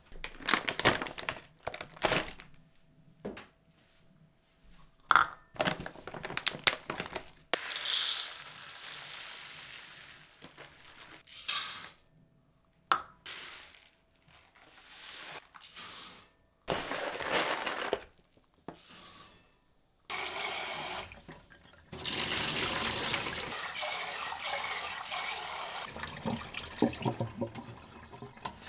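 Knocks of a nonstick rice cooker inner pot and bags on a counter, dry white and brown rice grains poured into the pot with a rattling hiss, then tap water running into the pot as the rice is rinsed by hand at the sink for the last several seconds.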